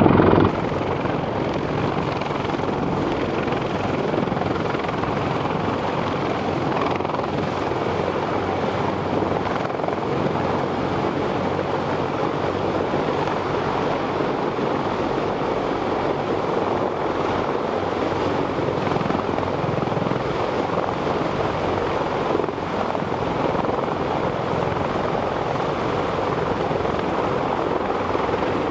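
Steady rotor and engine noise from a formation of CH-53 heavy-lift helicopters flying in and landing.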